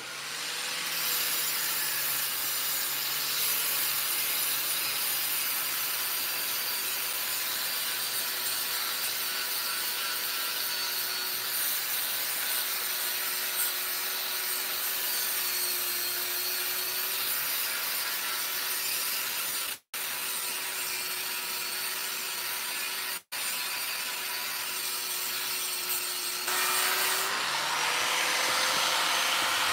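Angle grinder running steadily against the steel top of an anvil slab, grinding off rust to clean the surface. The motor's hum dips slightly under load partway through. The sound cuts out twice for an instant.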